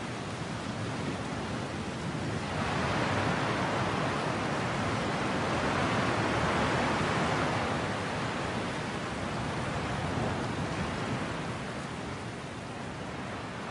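Sea ambience: an even rushing wash of noise that swells about two and a half seconds in and slowly eases off toward the end.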